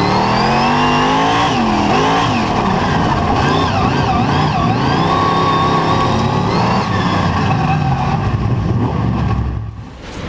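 Superstock speedway car's V8 engine heard from inside the cockpit, revving up and down through the laps. Nearby race cars are mixed in. The sound dips briefly near the end.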